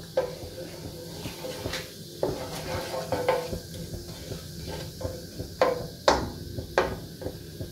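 Wooden spatula stirring whole spices in oil in a wok, scraping and knocking against the pan, with a handful of sharp knocks spread through.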